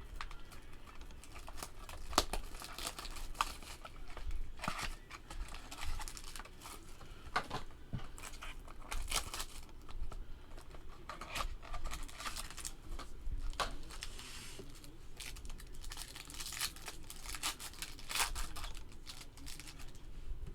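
Trading card packaging torn open and crinkled by hand: a run of irregular crinkles and ripping sounds.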